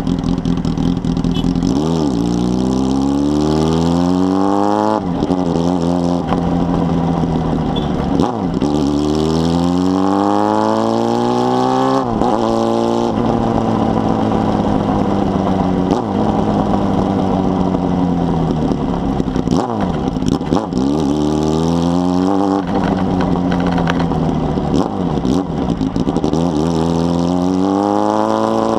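Honda Hornet 2005 motorcycle's carbureted inline-four engine through a 4-into-1 exhaust, accelerating up through the gears. The revs climb and drop sharply at each shift, then fall away slowly as it eases off, and climb again near the end.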